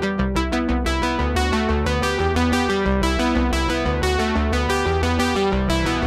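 Background music: an electronic keyboard or synthesizer tune with quickly repeated notes over a steady bass.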